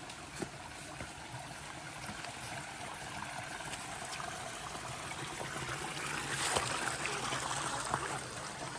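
Small stream trickling over rocks, steady and rising slightly toward the end, with a few faint knocks.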